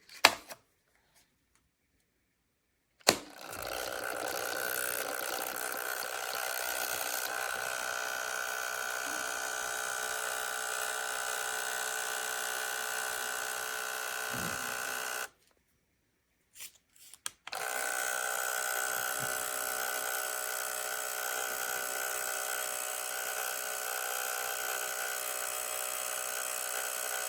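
Phomemo M110 thermal label printer's motor feeding and printing labels: a steady mechanical whine for about twelve seconds that stops suddenly, then a few clicks, then the same whine again for about ten seconds. There is a single click near the start.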